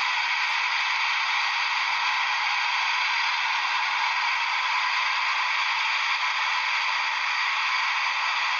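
Steady, even static hiss with no change in level, lacking deep bass and the highest treble.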